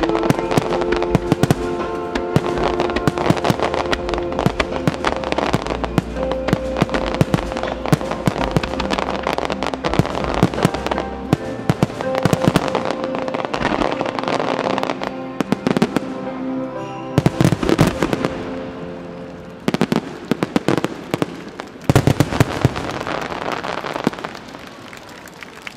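Aerial firework shells bursting in rapid succession with crackle, over a musical soundtrack played with the display. Clusters of especially loud bursts come about 17 and 22 seconds in, and the bursts thin out near the end.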